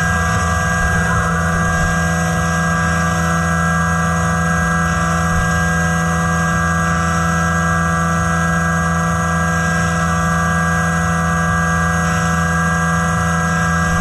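CNC machining centre's spindle running at a steady high speed while an end mill cuts a metal block: a steady whine of several tones over a hiss of cutting and spray.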